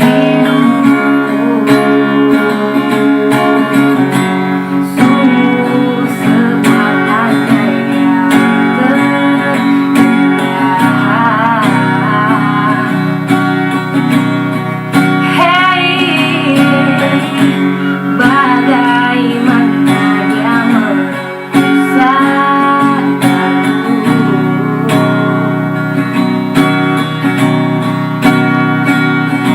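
Acoustic guitar strummed steadily, with a voice singing a melody over it that wavers with vibrato.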